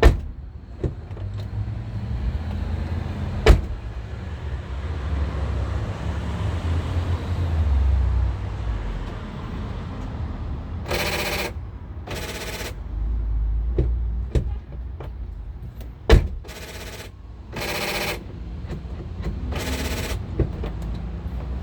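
A new front door lock actuator on a 2008 Honda CR-V, buzzing in five short bursts of about half a second each as the power locks cycle; the actuator is working properly. A few sharp clunks of the door latch come before the buzzing, and one more comes between the bursts.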